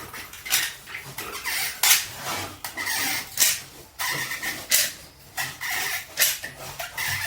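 Manual caulking gun worked by hand, a rapid series of short squeezing, clicking strokes as adhesive is pumped out of a tube.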